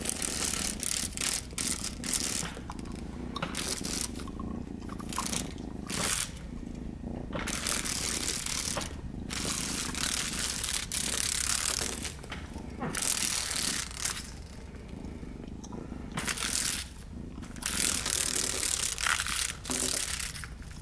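A dragonfly's wings fluttering against window glass, giving a rattling buzz that comes in stretches of a second or two with short breaks between them.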